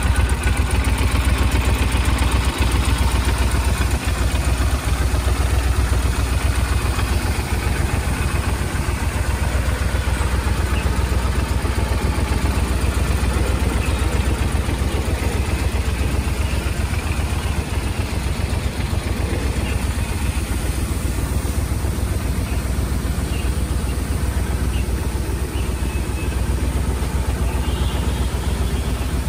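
Triumph Thunderbird LT's 1,700 cc parallel-twin engine idling steadily, with a deep, even beat that does not rev up or change.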